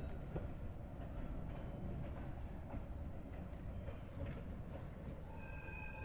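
Diesel train running slowly, a steady low rumble with a few faint clicks from the wagons. Several steady high tones come in near the end.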